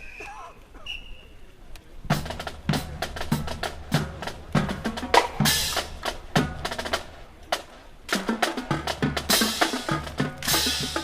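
Drum-heavy percussion music with rapid snare and bass-drum hits over a steady low bass. It starts about two seconds in and follows a couple of short, high whistle-like tones.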